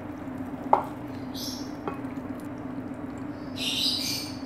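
Thickened milk poured from a jug over fried bread slices in a glass dish, giving soft hissing splashes in two short spells, over a steady low hum.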